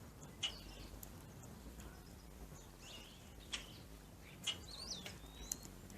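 Birds chirping: a handful of short, sharp, high chips scattered across a few seconds, with a brief whistled note that bends up and down near the end.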